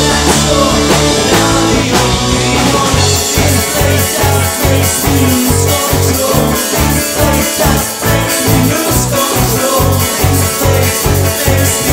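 Live rock band playing with electric guitar, bass and drum kit. About three seconds in, the held low notes give way to a choppy, pulsing rhythm of about three beats a second.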